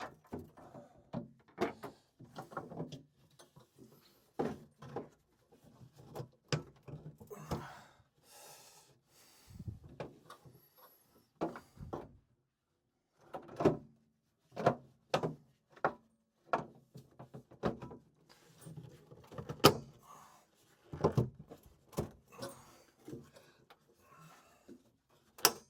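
Irregular knocks, clicks and short scrapes of hand work on a combi boiler's sump and heat exchanger as the new sump is worked into place, with one louder knock about two-thirds of the way through.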